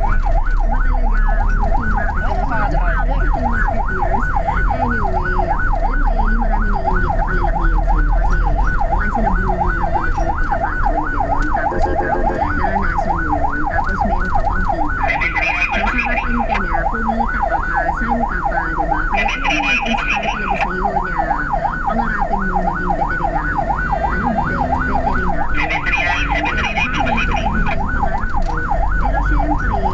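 Ambulance's electronic siren on a rapid yelp, sweeping quickly up and down without a break, heard from inside the ambulance over its engine and road rumble. Three short, higher-pitched blasts cut in partway through, the last near the end.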